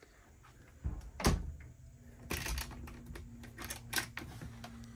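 Galley cupboard and fridge doors being handled in a small wood-panelled space: two sharp knocks about a second in, then a quick run of clicks and rattles like a door catch being worked. A low steady hum comes in about two seconds in.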